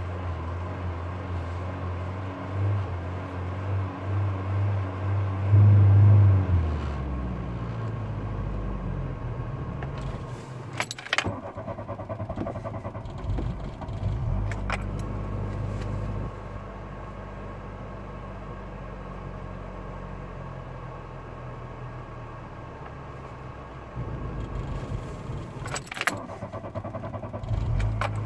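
Volkswagen Jetta A2's 1.8-litre four-cylinder engine idling fast just after a cold start at −3 °C, heard from inside the cabin. The engine note swells a few times and settles lower about six seconds in, and the keys in the ignition jingle now and then.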